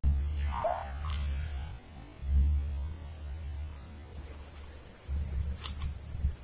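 Outdoor pond-side ambience: low rumbling bursts on the microphone over a steady high whine of insects. A short chirp comes about half a second in, and a sharp click near the end.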